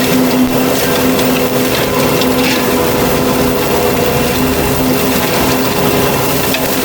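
Fecon forestry mulcher head on a Takeuchi track loader running steadily, a constant drone with a whine, with a few brief cracks as brush and wood are chewed.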